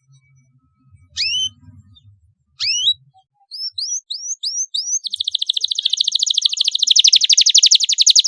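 Domestic canary singing. A few separate rising whistled notes lead into a run of quicker rising notes, then a fast rolling trill from about five seconds in.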